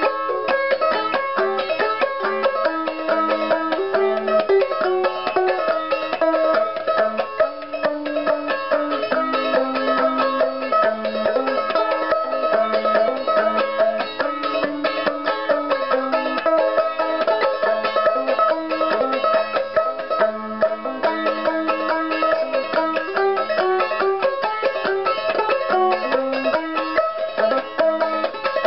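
Banjo ukulele playing a lively tune: a continuous run of tinkly plucked notes, the melody stepping up and down.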